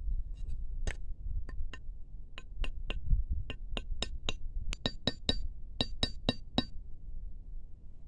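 A machete blade tapping a small wooden stake into hard ground: around eighteen sharp clinks with a short metallic ring, coming quicker, about three or four a second, in the second half before stopping.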